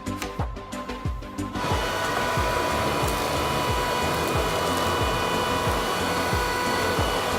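Vacuum cleaner motor running with a steady whine and rush of air, starting about a second and a half in, over background music with a steady beat.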